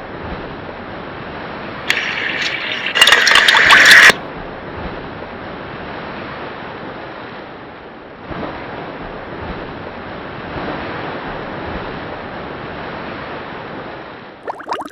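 Steady rushing sound of sea waves, likely an added ocean sound effect. A louder, brighter sound breaks in from about two to four seconds in before the surf noise carries on.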